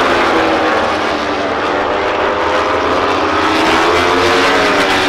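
Several MotoGP racing motorcycles with 1000 cc four-cylinder four-stroke engines pass at speed one after another. Their engine notes overlap, rising and falling as each bike goes by.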